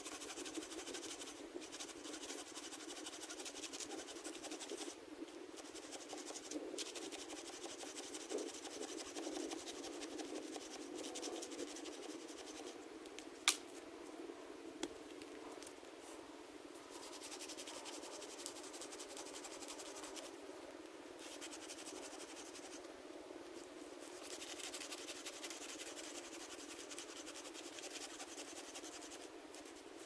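Hand saw cutting through a fallen log, a steady scratchy rasp of the blade broken by a few short pauses. A single sharp click about halfway through.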